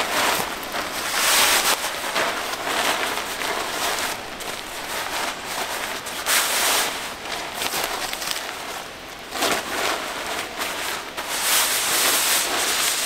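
Hammock fabric rustling and swishing in repeated bursts as it is gathered and pulled into a long storage sleeve.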